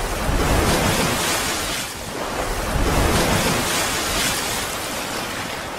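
Rushing, surf-like whoosh from an outro sound effect, starting suddenly and swelling and easing a few times.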